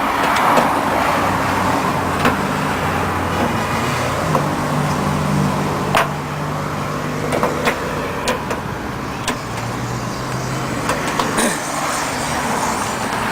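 Steady vehicle and traffic noise with a low engine hum that swells for several seconds in the middle. Over it come a handful of sharp clicks and knocks of parts being handled as the headlight assembly is fitted back in place.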